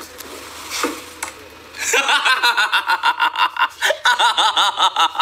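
High-pitched laughter in quick repeated bursts, starting about two seconds in.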